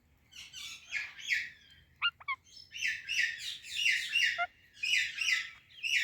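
Indian ringneck parakeet chirping in runs of quick, repeated, high notes, broken near two seconds by a couple of short sharp calls.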